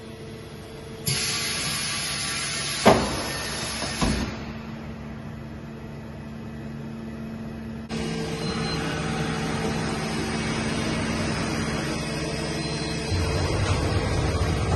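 Steady machinery hum in a workshop with a hissing noise over it, broken by two sharp knocks about three and four seconds in; the background changes abruptly about a second in and again about eight seconds in.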